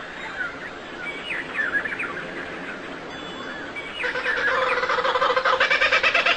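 Small birds chirping with short, quick sweeping notes, then about four seconds in a louder bird call starts, a fast pulsing sound held at a steady pitch.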